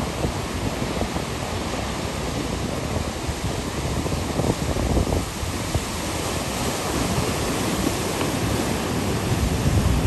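Ocean surf washing and breaking, with wind buffeting the microphone in irregular low gusts.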